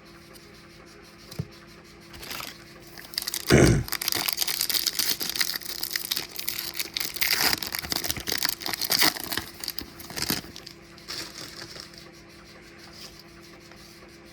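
Trading-card pack wrapper being torn open and crinkled, with a thump about three and a half seconds in, the crackling running for several seconds before dying away.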